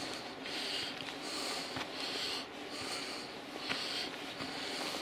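A hiker breathing hard and quickly while walking, about one breath a second, with a few faint footsteps on a rocky trail.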